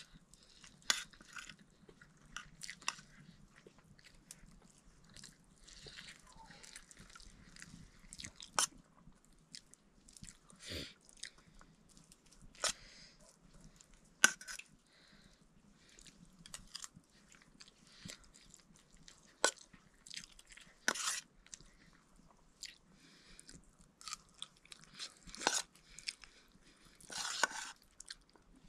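Close-up eating sounds: a steel spoon scraping and clicking against a steel plate of rice and cabbage curry, with chewing in between. The clicks come irregularly, a few sharper ones standing out from the rest.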